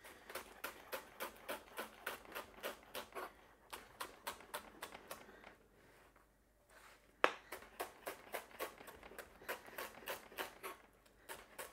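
Kitchen knife shredding Brussels sprouts on a plastic chopping board: a steady run of knife taps, about four a second. The tapping pauses briefly just past the middle and starts again with one louder knock.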